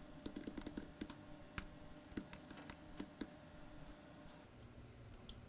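Faint typing on a computer keyboard: a quick run of keystrokes that thins out after about three seconds into a few scattered clicks.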